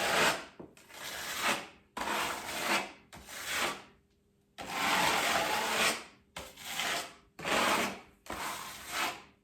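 Filling knife scraping mud (joint compound) across a textured wall in repeated strokes, about eight in all, each roughly a second long, with a short pause about halfway through.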